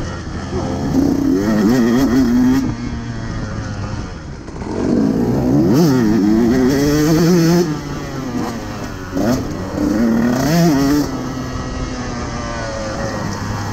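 KTM 150 SX two-stroke single-cylinder motocross engine under hard riding, its pitch rising and falling as the throttle is opened and shut. There are three strong surges about a second, five seconds and nine seconds in, and it settles lower near the end.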